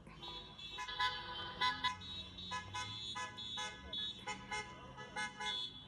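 Many car horns honking at once from a passing car rally. Short and longer blasts in several pitches overlap and come in uneven bursts.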